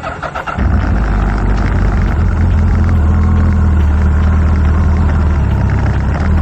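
Suzuki Hayabusa's inline-four engine running steadily, coming in loud about half a second in.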